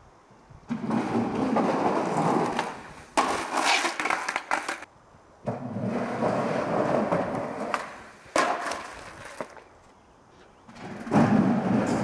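Skateboard wheels rolling, in three runs of a few seconds each with short quiet gaps between. A sharp clack of the board comes in each run.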